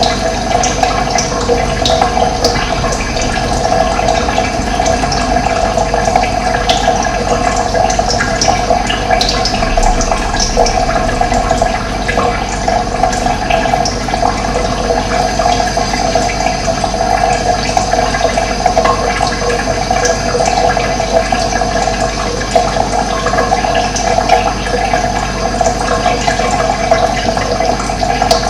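Steady rush of running water, even and unbroken, with brief high bird chirps now and then.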